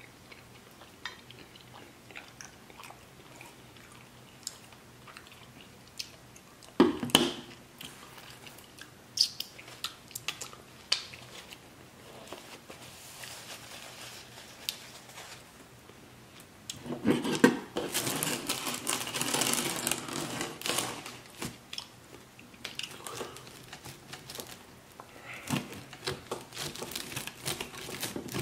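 Close-miked eating sounds: chewing and biting with wet mouth clicks, set among scattered sharp clicks. There is a sudden loud burst about seven seconds in and a louder rustling, crackling stretch past the middle. Near the end, a pizza cutter's wheel rolls through the crust on the cardboard.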